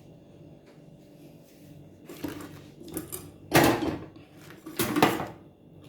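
Kitchen utensils and dishes being handled: a few short knocks and scrapes, the loudest about three and a half and five seconds in.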